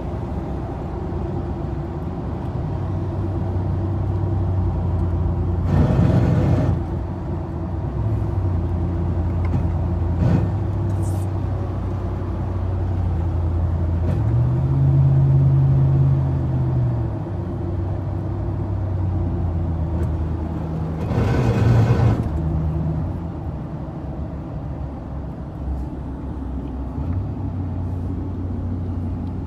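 Chevy Silverado pickup driving, with a steady low drone and two louder, harsher grinding surges, about 6 seconds and about 21 seconds in; the pitch of the drone rises and falls once around the middle. This is the grinding and vibration the owner hears at about 1,500 rpm and 40 to 60 mph, which started after a transmission and differential oil change.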